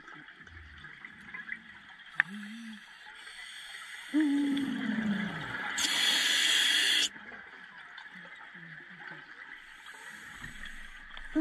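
Scuba diver breathing through a regulator underwater. About four seconds in there is an inhalation with a falling hum, followed by a loud rush of exhaled bubbles lasting about a second. The next inhalation starts near the end, and a single sharp click comes about two seconds in.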